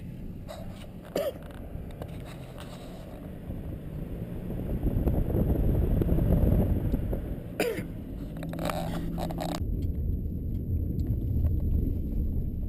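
Vehicle driving noise heard from inside the cabin: a steady low rumble of engine and tyres that swells about halfway through, with a brief knock or two over the road.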